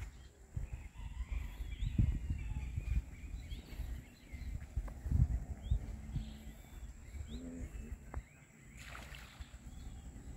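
Outdoor ambience: a low, uneven rumble, loudest about two and five seconds in, with faint bird chirps above it.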